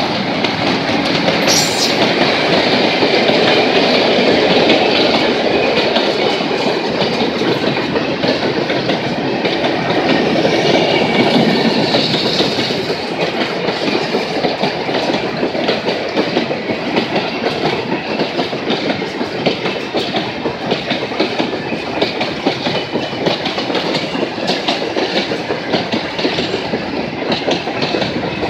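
Freight train of tank cars and grain hoppers rolling past close by, just behind its ALCO RSD-16 diesel locomotive. A dense rolling rumble is loudest over the first dozen seconds, then the wheels give a steady clickety-clack over the rail joints.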